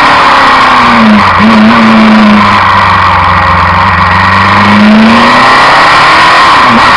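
Suzuki Inazuma 750's inline-four engine running loudly under way on freshly adjusted carburettors, with wind rush. The engine pitch drops sharply about a second in, as at a gear change, holds steadier through the middle, then rises under acceleration and dips again near the end.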